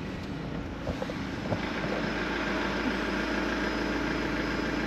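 Campervan engine and road noise heard from inside the cab, a steady hum with a few small clicks in the first two seconds and a firmer low drone from about two seconds in.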